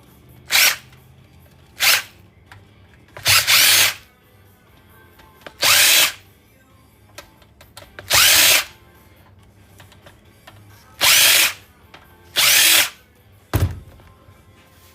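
Power drill spinning in short bursts, about seven of them half a second to a second long, backing screws out of an electronics case during teardown.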